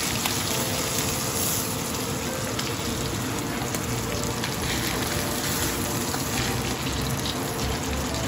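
Steaks topped with mayonnaise sizzling steadily in hot oil in a stainless steel frying pan, with fine crackling throughout.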